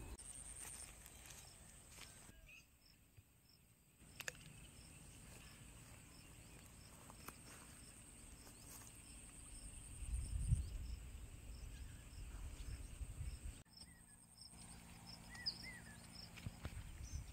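Outdoor pond-bank ambience of insects: a steady high-pitched buzz with a short chirp repeating evenly a few times a second. A low rumble swells briefly about ten seconds in.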